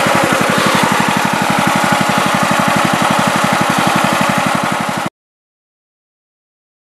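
Small gas engine of a YardMax hydraulic log splitter running steadily at an even beat, then cutting off abruptly to dead silence about five seconds in.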